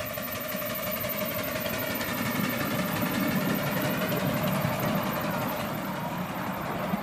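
Ride-on live-steam miniature locomotive running past while pulling loaded passenger cars: a steady rumble and hiss of the engine and wheels on the track, with a faint steady tone that sinks slightly in pitch.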